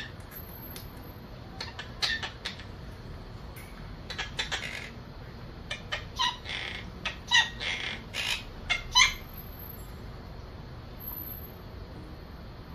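Pet parrot calling in short, sharp, high-pitched notes: a few about two seconds in, then a busier run of calls from about four to nine seconds in, the loudest near the end of that run.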